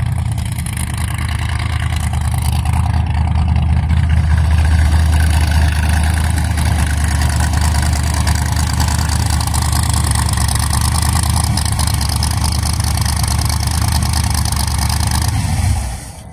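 1930 Ford Model A hot rod's engine running with a loud, steady low note as the car rolls along, building over the first few seconds and dropping away suddenly near the end.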